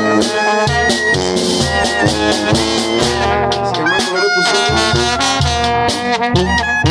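Live Mexican banda music: a sousaphone plays the bass line under trumpets and other brass.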